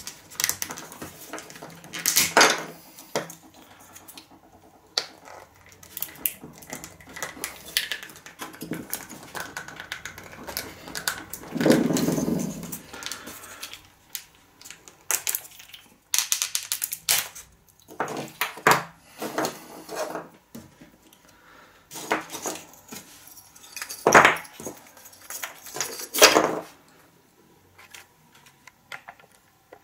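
Handmade wooden lure's wooden lip wedged in a slotted wooden block and levered hard: irregular clicks, knocks and creaks of wood against wood, with a heavier thump about twelve seconds in and sharp clicks near the end. The lip is being stress-tested for how firmly it is set in the lure body.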